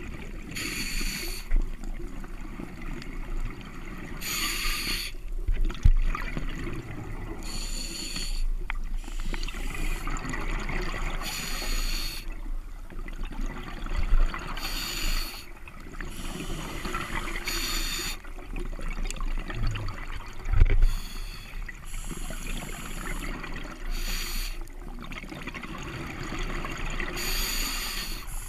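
Scuba regulator breathing heard underwater through a camera housing: hissing breaths and rushes of exhaled bubbles every three to four seconds over a steady water wash. A few dull knocks stand out, about six, fourteen and twenty seconds in.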